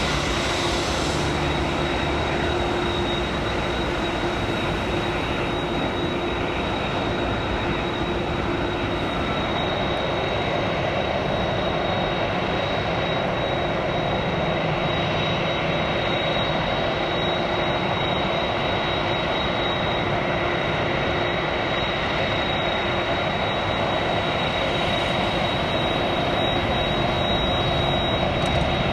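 Jet airliner engines running at idle: a steady noise with a constant high whine running through it, growing slightly louder near the end.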